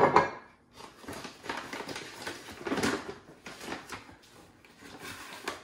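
Flour, spices and gin being mixed into a dough: irregular rubbing and scraping strokes, with a sharp knock at the very start.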